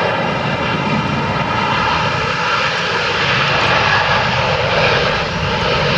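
Boeing 787-8 turbofan engines running at departure thrust: a loud, steady rushing noise with a high whine of many steady tones layered over it.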